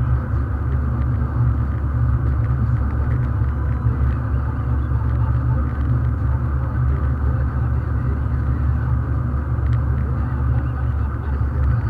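Steady low rumble of road and engine noise inside a moving Mazda MX-5's cabin, at cruising speed.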